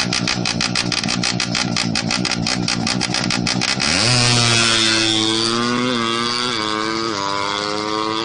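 Drag-tuned Suzuki Satria FU's single-cylinder four-stroke engine running at a lumpy idle, about six beats a second. About four seconds in it revs up in a rising glide and holds high, shifting pitch in a few small steps as the bike is pushed off through the floodwater.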